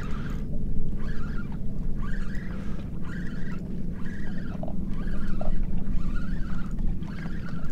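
Steady wind and water noise on a small open boat, with a spinning reel being cranked: a repeating squeaky whir about three times every two seconds as the line is retrieved.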